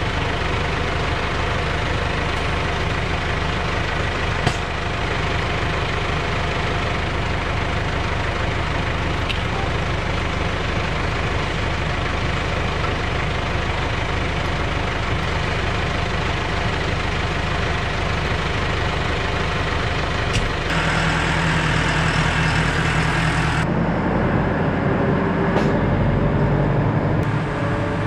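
Large farm tractor's diesel engine running steadily at idle. About two-thirds of the way through the sound changes and grows a little louder as the tractor drives off along a gravel track.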